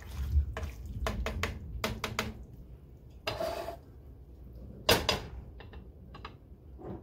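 Slotted spoon stirring thick chili in a stainless steel pot: a quick series of knocks and scrapes against the pot, then a longer scrape and one louder clank about five seconds in, followed by a few light clicks.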